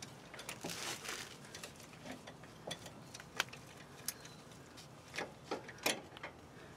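Faint, irregular metallic clicks and clinks of a socket on a long extension working a 12-point bolt into the front drive axle's flange at the differential. The sharpest clicks come about three and a half seconds in and near six seconds.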